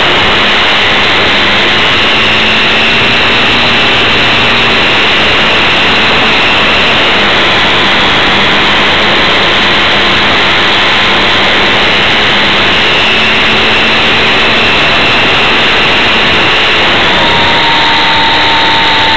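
Radio-controlled model airplane's motor and propeller heard from on board in flight, a loud steady rush of wind and motor noise. A thin whine inside it steps up and down in pitch every few seconds as the throttle and airspeed change.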